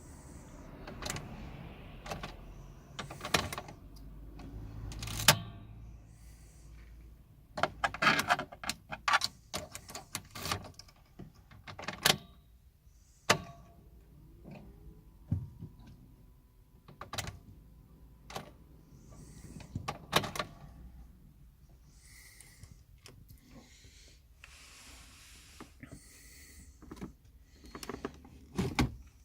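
Ignition key of a 2003 Mercedes A160 turned again and again: sharp clicks and key-ring rattles with no engine cranking, a no-start with the dash warning lights staying on.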